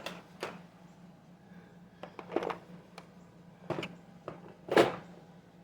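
Scattered clicks and knocks of small objects being handled and set down while someone rummages for a tool, the loudest knock a little before the end, over a low steady hum.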